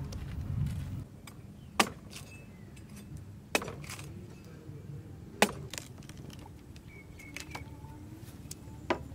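Cleaver chopping into the husk of a young green coconut on a wooden table: four sharp chops, the last near the end, with lighter knocks and scrapes between.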